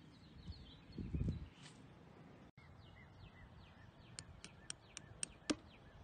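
Small birds chirping throughout. About four seconds in, a quick run of sharp taps, about four a second and growing louder: a hammer driving the stakes that anchor a metal bird bath's base into the ground.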